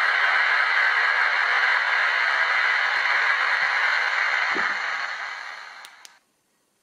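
Steady steam hiss from the Zimo sound decoder's speaker in a Hornby OO gauge model of the LNER A4 locomotive Bittern, standing still; it fades near the end and cuts off suddenly.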